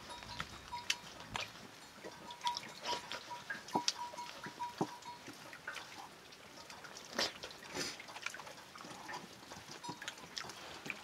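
Hand-eating sounds: fingers mixing rice on a steel plate, with scattered soft clicks, scrapes and mouth sounds of chewing. A faint high tone keeps breaking on and off through the first half.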